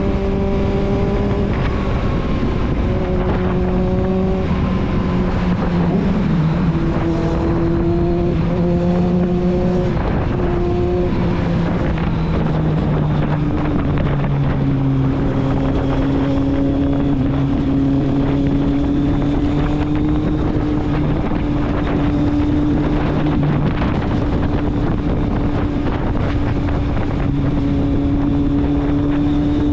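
Kawasaki Z750 inline-four motorcycle exhaust under way, the engine note holding steady for stretches and dropping in pitch a few times, with wind noise on the microphone.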